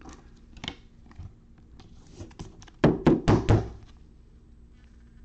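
Gloved hands handling trading cards in rigid plastic holders: a few light clicks, then a quick run of five or six dull knocks about three seconds in. A faint steady hum lies under it.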